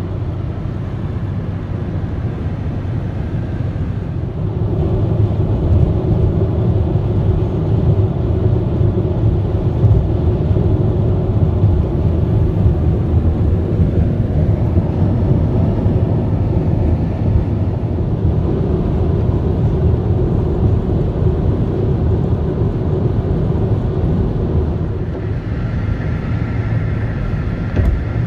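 Steady low road rumble of a car cruising at highway speed, heard inside the cabin: tyre and engine noise with some wind, growing a little louder about five seconds in. A faint higher tone joins near the end.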